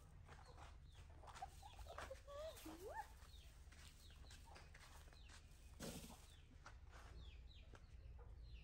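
Faint animal calls: a few short chirps and clucks that glide upward in pitch, most of them in the first three seconds, then a brief rustle about six seconds in.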